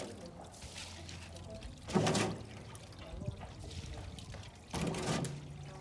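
Water pouring and trickling off a large metal strainer ladle as cooked rice is scooped from its cooking water and drained, with two louder splashing pours, about two seconds in and near the end.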